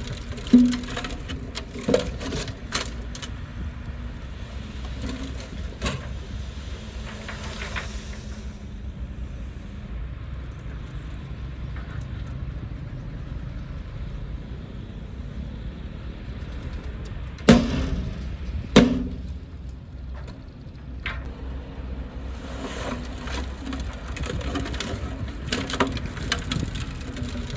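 Heavy machine's engine running with a steady low rumble while wood cracks and snaps, as trees and branches are pushed over and crushed. Two loud cracks come about two-thirds of the way through.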